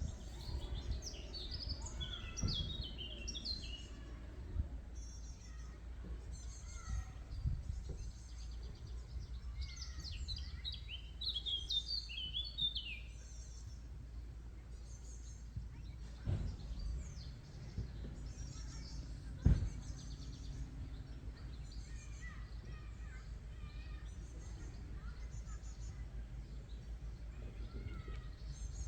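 Songbirds singing in quick chirping phrases, twice in longer bursts, over a steady low outdoor rumble. Two sharp knocks about two-thirds of the way through, the second the loudest sound.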